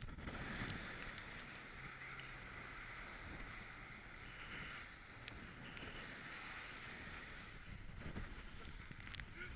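Inflatable boat with an outboard motor running fast through rough sea in strong wind: a steady rush of wind and water with the motor's low drone faint underneath.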